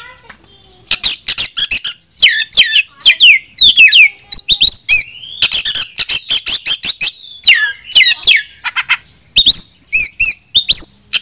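Oriental magpie-robin (kacer) singing loudly: a fast, varied run of clear whistled notes, sharp clicks and harsh notes, starting about a second in. It is the full, aggressive song that calls rival males to fight.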